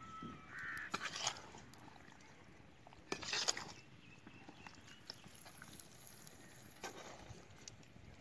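Metal spatula stirring and scraping a thick chicken curry in a black iron kadai: a few short scrapes, loudest about a second in and about three seconds in, with a lighter one near the end.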